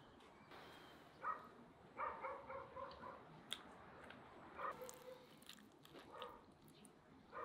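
Quiet eating sounds as bread is torn and dipped into a pan of fried eggs, with a few sharp clicks. Over them, an animal gives short high calls in bursts every second or so.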